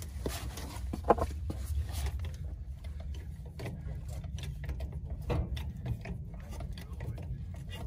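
Hydraulic trolley jack being pumped to lift a mobile home axle: irregular mechanical clicks and creaks, with a brief squeak about a second in, over a steady low rumble.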